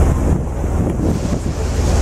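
Wind buffeting the microphone aboard a moving river tour boat, a heavy low rumble over the rush of water.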